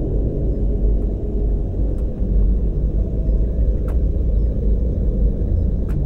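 Deep, steady rumbling drone of a film soundtrack's dark ambient sound design, with a few faint ticks about two seconds apart.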